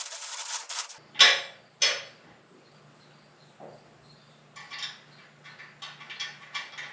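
A car lift's hydraulic pump unit being handled and fitted onto the steel lift column. There is a rustle of plastic wrapping, then two sharp metal knocks about a second in. Near the end comes a run of light metallic clicks and clunks as the pump is positioned against the column.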